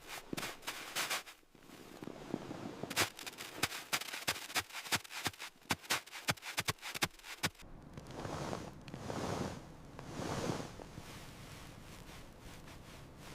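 A quick, irregular run of sharp clicks and knocks, then several soft crunching swells.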